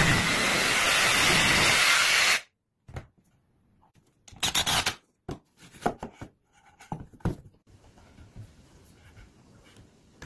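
Whirring noise of a power tool cutting the 2x4 lumber, which cuts off abruptly about two seconds in. Then comes a short burst of noise and a run of sharp knocks and clacks of the wooden pieces being handled and fitted together, dying away to faint room noise.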